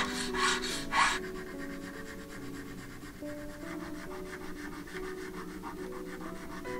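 Hand file rasping across a small metal habaki, about two strokes a second, with the last loud stroke about a second in. After that, fainter rapid, fine scratching of a small file on the metal, over soft background music.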